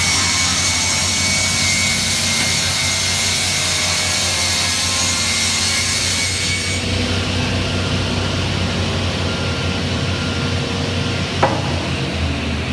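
Multi-blade rip saw ripping a wooden plank into several strips: a loud, hissing cut with a high whine for the first six or seven seconds, then the machine running on without a load, with one sharp knock near the end.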